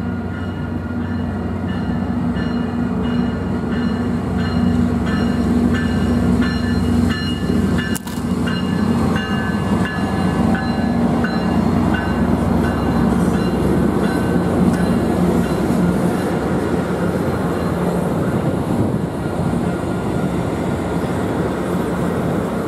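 Amtrak Pacific Surfliner passenger train running past close by: a steady, loud rumble of the bi-level cars on the rails, with a low diesel engine drone underneath.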